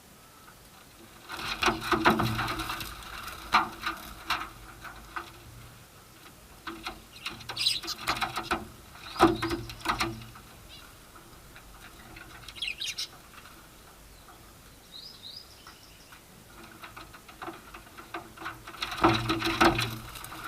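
A young Alexandrine parakeet and budgies fighting: several bursts of wing flapping and clattering mixed with chirps, separated by quieter gaps.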